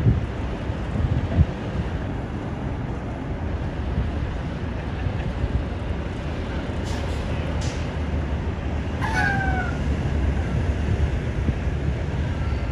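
Steady low rumble of a semi truck's diesel engine as the tractor-trailer backs slowly. There is a thump about a second and a half in and a short falling squeal about nine seconds in.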